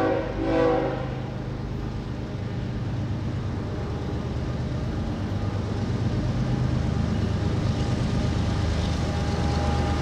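Train horn sounding two short blasts within the first second, then the low rumble of the approaching train growing slowly louder.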